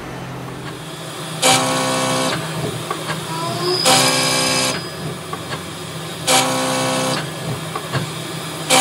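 CNC lathe's live-tooling milling cutter cutting flats into a round metal bar. There are three cuts of under a second each, about two and a half seconds apart, each a pitched whine over a hiss. A steady machine hum runs between them.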